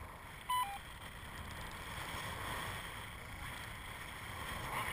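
Wind rushing over the microphone of a paraglider in flight. About half a second in, a short electronic beep of two notes, the second lower.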